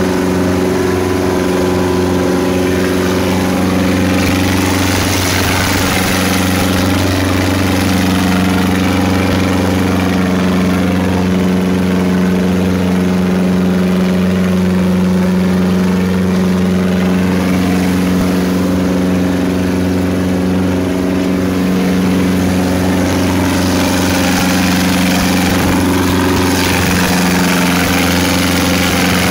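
Boat engine running steadily at speed, its pitch holding almost constant, with water rushing and splashing along the hull.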